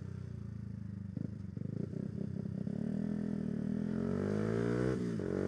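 Motorcycle engine at low revs with some uneven clattering, then accelerating, its pitch rising steadily from about three seconds in and dropping briefly at a gear change near the end before climbing again.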